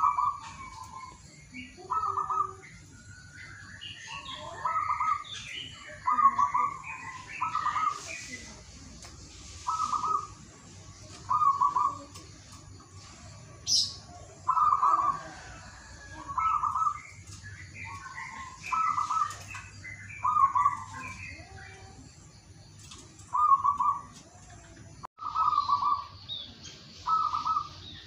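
Zebra dove (perkutut) cooing: short, bright notes repeated about every one to two seconds, sometimes in quick pairs. Fainter, higher chirps from smaller birds sound between them.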